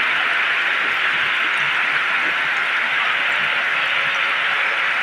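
Fast-flowing floodwater rushing, a steady loud hiss.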